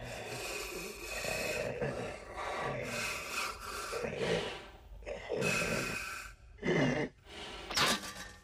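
A man breathing heavily through a helmet's face grille, several long rasping breaths in and out, turning into sharper gasps near the end.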